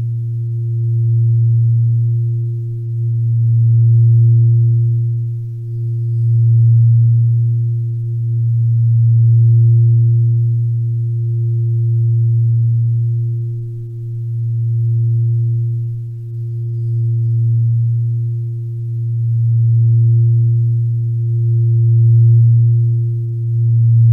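Low, steady humming drone with a fainter higher overtone, swelling and fading slowly about every two and a half seconds: background music for relaxation.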